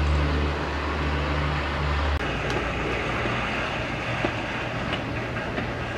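Steady outdoor background noise with a strong low hum that stops abruptly about two seconds in, leaving a fainter, even rumble with a few faint ticks.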